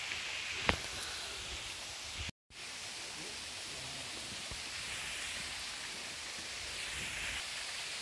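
Steady rush of water from a small, gentle waterfall, with a single sharp click a little under a second in and a brief drop-out to silence about two and a half seconds in.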